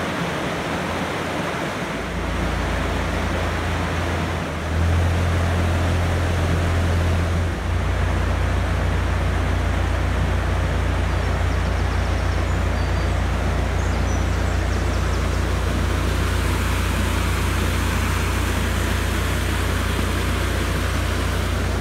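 Narrowboat's diesel engine running with a low, steady hum as the boat moves into a lock, over a steady rushing noise. The engine note grows louder about two seconds in and again about five seconds in.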